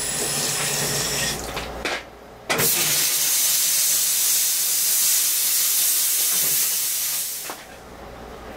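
A jeweler's steam cleaner jet hissing loudly in two long blasts with a short break about two seconds in, the second lasting about five seconds. This is the kind of steam blast used to clean jewelry during rhodium plating.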